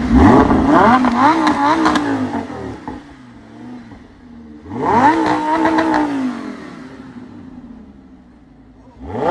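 Lamborghini sports car's engine revved hard twice while parked, its pitch climbing sharply and then dropping back: once at the start and again about five seconds in.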